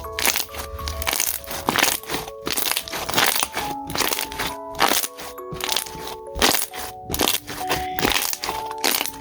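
Clear slime being squeezed and worked, with air bubbles popping in quick, irregular crackles. A light background melody plays under it.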